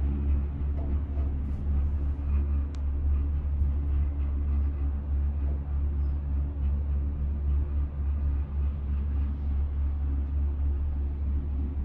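Steady low rumble and hum inside a gondola cable car cabin as it rides along the cable.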